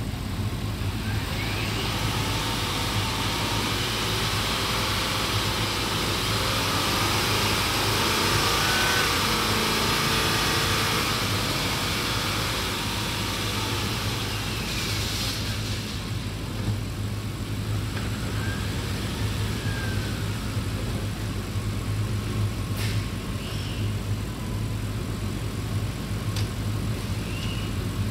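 2014 Audi A8 engine running with the car up on a lift and its wheels driven in gear: a steady low engine hum, with drivetrain whine and tyre noise rising to a peak about a third of the way in and then easing off, and a smaller rise and fall later.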